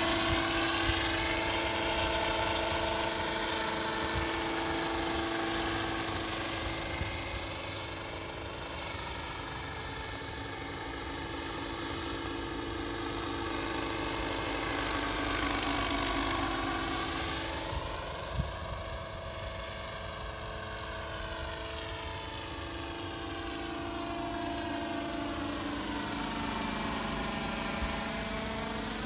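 Radio-controlled 600-size scale UH-1N model helicopter in flight, its rotor and drive running with a steady high whine. The tone swells and shifts as the helicopter passes back and forth.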